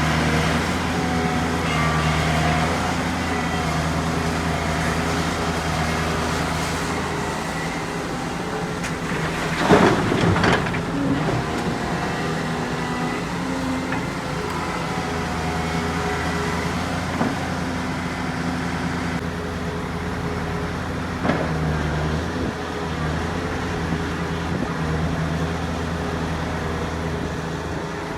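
Heavy diesel construction machinery running steadily, with a loud cluster of knocks and clatter about ten seconds in and two smaller knocks later on.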